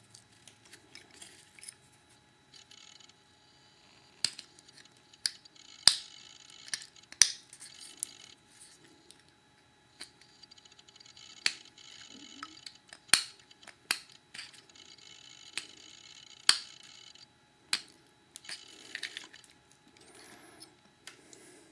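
Excess solder being cleaned off a gold bullet connector by hand: scattered sharp clicks and taps of the connector and small tools, with several stretches of soft, even hiss a few seconds each.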